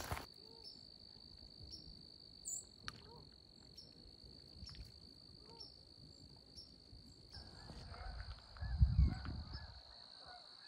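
Outdoor lakeshore ambience: insects drone in one steady high-pitched tone. From about seven seconds in, faint animal calls join them. A brief low rumble near the end is the loudest sound.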